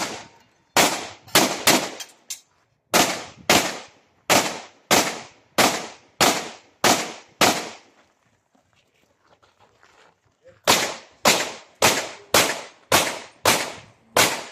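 IPSC Open-division pistol firing a fast string of single shots, about one every half to two-thirds of a second. After roughly a dozen shots there is a pause of nearly three seconds, then a second string of about seven shots.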